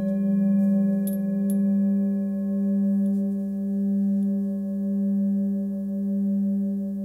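Hand-hammered Nepalese singing bowl tuned to G (about 199 Hz) ringing on after a strike: a steady low hum with several higher overtones, its loudness swelling and fading slowly about once a second.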